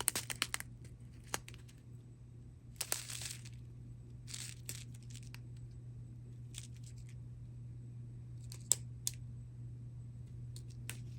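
Small plastic bags of diamond painting drills being handled: crinkling and rattling in short bursts every second or two, over a steady low hum.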